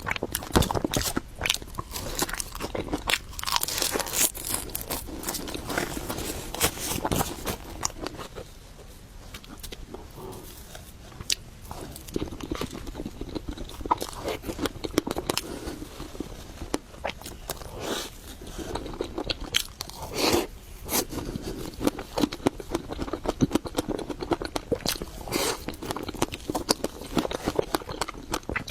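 Close-miked eating sounds: a person biting and chewing food, with many short sharp clicks and crackles. It eases off for several seconds in the middle.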